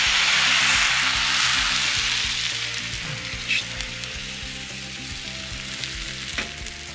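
Thin pancake batter sizzling as it is poured into a hot, oiled frying pan and swirled around. The sizzle is loudest at first and fades as the batter spreads thin and sets.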